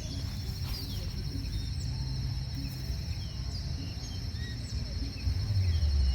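Countryside ambience: a steady high insect trill runs throughout, with short bird chirps scattered over it and a low rumble underneath.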